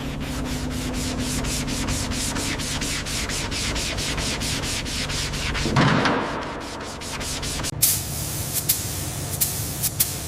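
Fast, even rubbing or scraping strokes over a steady low hum. About eight seconds in it changes to a hiss with sharp clicks.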